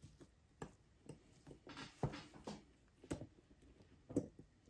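Faint, scattered clicks and taps of a small screwdriver and tweezers on the metal frame of an HO-scale model locomotive as a tiny screw is worked in, roughly one tap a second.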